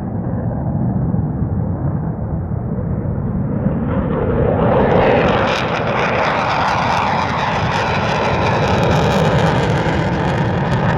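F-15 Eagle's twin jet engines in afterburner on takeoff: a loud, steady rumble that turns harsher and brighter about four seconds in.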